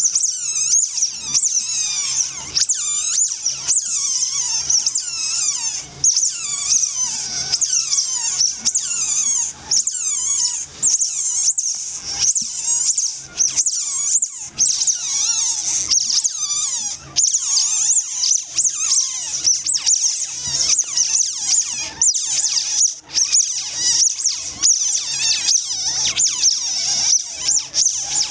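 Week-old Asian small-clawed otter pups squeaking without pause, many high-pitched chirping calls overlapping in rapid succession.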